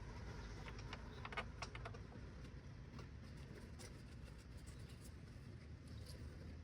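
Faint, scattered light clicks and taps of metal hardware being handled as bolts are started by hand on a truck mud guard bracket, over a low steady rumble.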